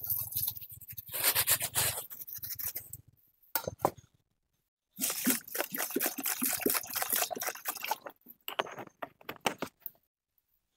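Uncooked rice poured from a plastic bag into a metal cooking pot, the grains pattering into the pot for a few seconds. About five seconds in, water is poured onto the rice, and near the end a hand swishes the rice around in the water to wash it, with small scraping clicks against the pot.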